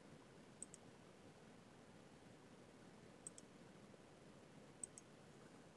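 Near silence, broken by three faint pairs of quick clicks from a computer mouse being clicked.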